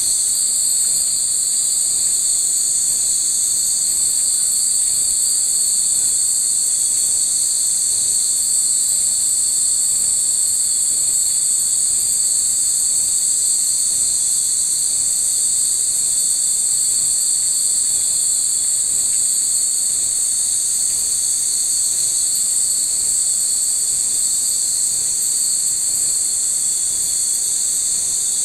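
Loud, unbroken, high-pitched chorus of insects, steady with no pauses.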